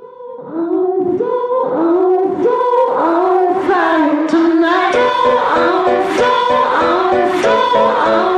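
Background music starting suddenly out of silence: a song with a sung melody, joined by a repeating figure of short notes about five seconds in.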